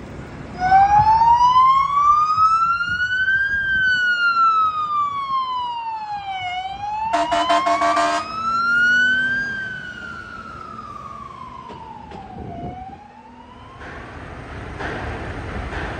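Fire engine siren on a slow wail, rising and falling over about three seconds each way, twice through. About seven seconds in, a harsh buzzing horn blast of about a second cuts across it, and the siren then fades as the truck drives off.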